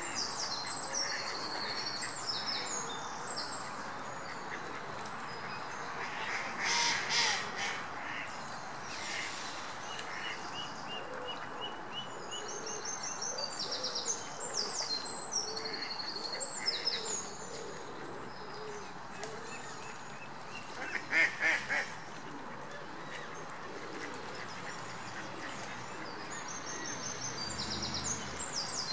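Mallard ducks quacking in two short runs, about seven seconds in and again about twenty-one seconds in, over a steady background hiss. A small bird's high-pitched chirping song comes and goes in between.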